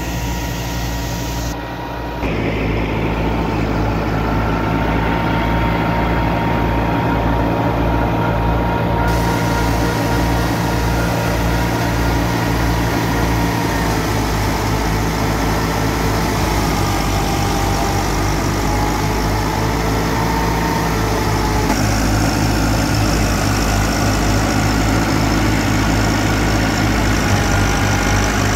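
A Massey Ferguson 385 tractor's four-cylinder diesel engine runs steadily under load, driving a wheat thresher through the PTO. The thresher's drum and fan add a steady whirring hum over the engine, and the sound shifts abruptly a few times.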